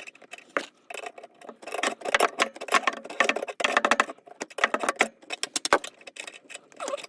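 Clicking, crinkling and scraping from hand-fitting a water supply line: Teflon tape being wrapped on threads and a plastic and metal fitting being handled and threaded on. The sound comes in a string of short irregular bursts.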